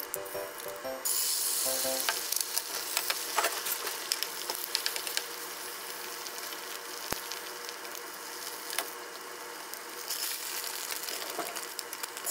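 Beaten egg sizzles in hot oil in a frying pan as it is cooked into a rolled omelette. The sizzle starts suddenly about a second in, when the egg hits the pan, and carries on with many small pops.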